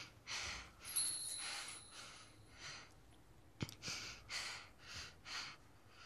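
A young girl's faint, breathy breathing and sighs, quick and shallow at about two breaths a second in the second half; she is badly hurt with bleeding inside the abdomen. A single sharp click a little past halfway.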